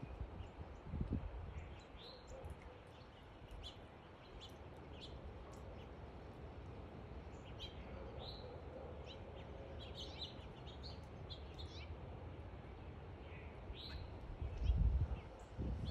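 Small backyard songbirds chirping: many short, scattered high chirps over a steady low rumble, with louder low gusts about a second in and near the end.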